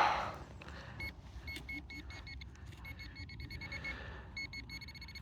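Handheld metal-detecting pinpointer probe beeping in a dug hole. Short high beeps come and go, then run fast near the end, signalling metal close to the probe tip.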